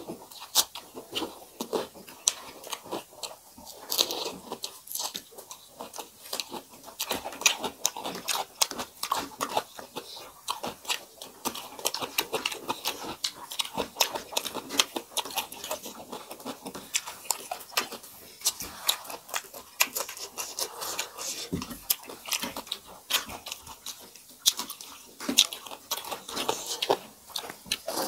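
Two people eating rice and fried vegetables by hand: close-miked chewing with frequent wet mouth smacks and crunches, irregular and continuous, along with fingers working the rice on steel plates.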